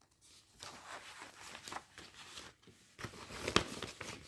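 Paper and plastic packaging rustling and crinkling as a cross-stitch kit's printed pattern sheet and wrapping are handled. It grows louder in the second half, with a few sharp crackles.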